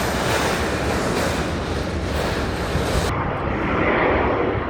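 Jet airliner engine noise: a steady rumble and hiss, swelling slightly near the end.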